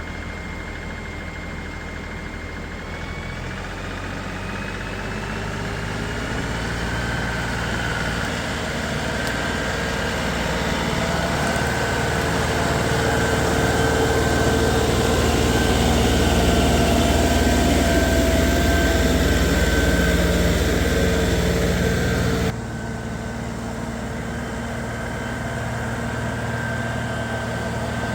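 Farm tractor engine running steadily under load while pulling a log up a steep slope on a winch line. It grows gradually louder over about fifteen seconds, then drops suddenly to a quieter steady run near the end.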